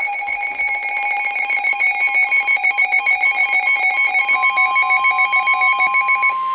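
A weather alert radio's alarm beeping rapidly, sounding for an incoming warning. About two-thirds of the way through, the steady 1050 Hz NOAA Weather Radio warning tone comes in under it. The beeping stops shortly before the end, leaving the tone alone.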